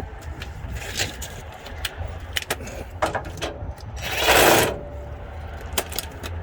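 Scattered metallic clicks and clanks of hand tools at work, over a steady low rumble. About four seconds in comes one loud rush of hiss-like noise lasting under a second.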